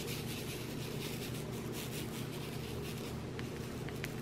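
Round diamond-painting drills rattling and sliding in a plastic sorting tray as it is shaken back and forth to line them up into rows. The rattle stops about three seconds in, leaving a few light clicks of single drills.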